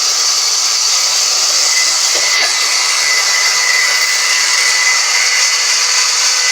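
Band saw running steadily, a loud even hiss with a thin high whine held throughout.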